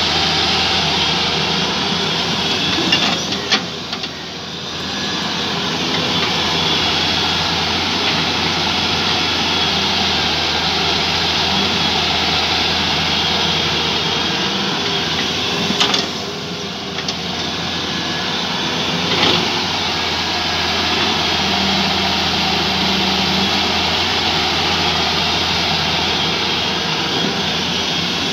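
Wheeled excavator's diesel engine working under load, running steadily as it digs and swings, with a few brief knocks and clanks of the bucket and soil.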